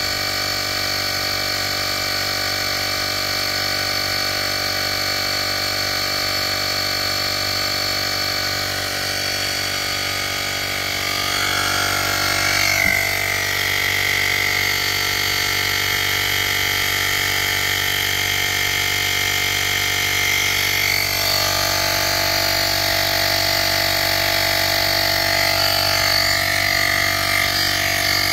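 Portable cordless digital air compressor running steadily while inflating a car tire, its small motor and pump making a constant drone that grows a little louder about eleven seconds in, with a brief click near thirteen seconds.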